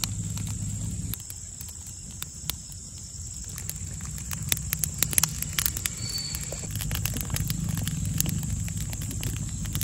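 Wood fire burning, with irregular crackles and pops over a low rumble.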